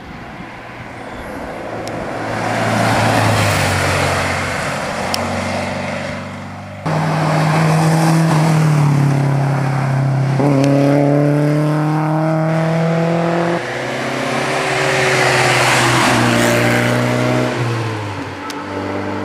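Rally cars' engines accelerating hard past a roadside spectator, pitch climbing through the revs and stepping at gear changes, with abrupt jumps between cars about a third and two thirds of the way through.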